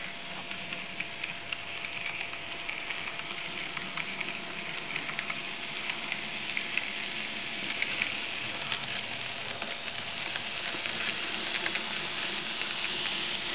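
N gauge model passenger train running on the layout's track: a steady hiss with many small irregular clicks, growing a little louder near the end as the train comes round the curve towards the camera.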